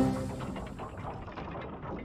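The background music ends on a final hit and fades away, leaving a fast, dense mechanical ticking of clockwork gears that carries on quietly.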